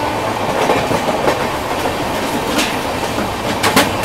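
Passenger trains running at speed on parallel tracks: a steady rumble of wheels on rail, broken by a few sharp clacks as wheels pass over rail joints.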